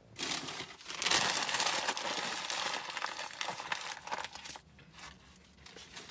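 Crinkling, rustling noise that starts just after the beginning, is loudest for the first couple of seconds and dies away about four and a half seconds in.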